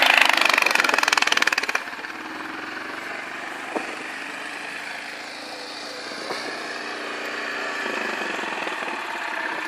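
Yamaha quad bike engine revving hard, then dropping suddenly about two seconds in to a quieter steady running, with a couple of short clicks.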